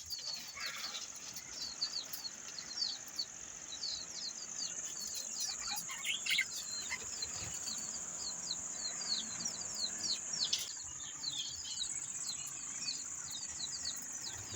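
A flock of budgerigars chirping and chattering continuously, many short falling chirps overlapping, over a steady high-pitched hum.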